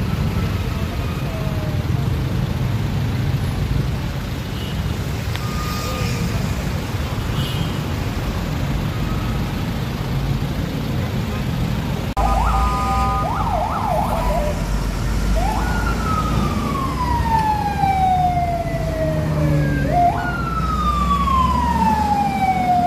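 Heavy road traffic with vehicle engines running. About twelve seconds in, an emergency-vehicle siren starts: a quick yelping warble, then two long wails that rise quickly and fall slowly.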